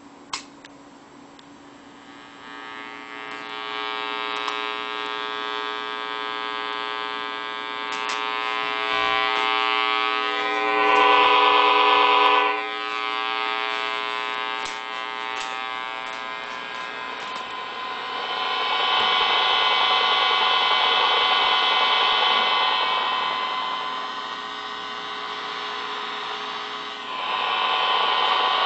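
Audio-feedback EMF reader buzzing through its speaker, one steady buzz made of many stacked tones that grows louder and softer with the strength of the field it picks up. It swells loudest about ten seconds in, again midway, and once more near the end, after a short click at the very start.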